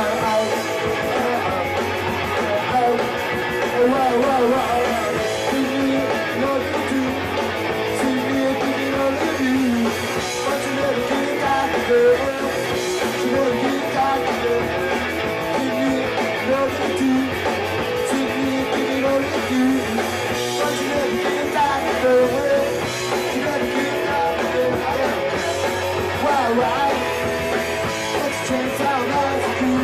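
Punk rock band playing live: electric guitar, bass and drums at a fast, steady pace, with singing.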